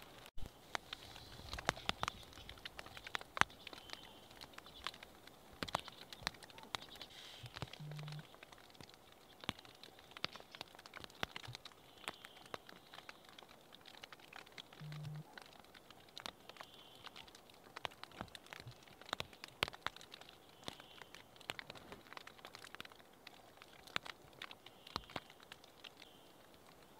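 Male western capercaillie display song: a long run of sharp, irregular clicks, with short high hissy stretches every few seconds.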